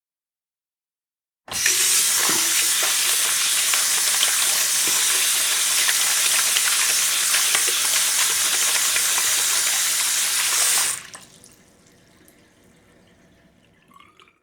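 A strong stream of running water, starting suddenly about a second and a half in and running steadily with small splashes through it, then cutting off about eleven seconds in, leaving faint trickling and drips.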